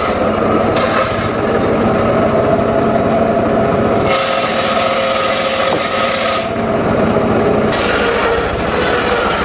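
Engine-driven saw running and cutting sengon wood. The engine runs steadily while the cutting noise changes, dropping about four seconds in and again for about a second near the middle.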